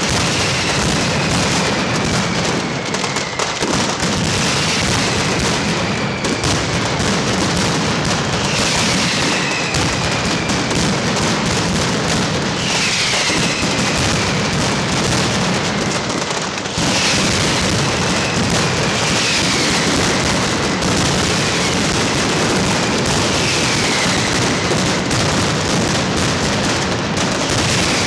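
Mascletà firecracker barrage: a dense, unbroken roll of bangs merging into one continuous din, with a falling whistle every few seconds from whistling fireworks. It briefly thins and then turns denser and louder about two-thirds of the way in.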